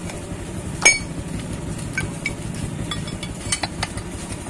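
Metal tools and parts clinking as they are handled on a workbench. One sharp, ringing clink comes about a second in, then a few lighter clicks, over a low steady hum.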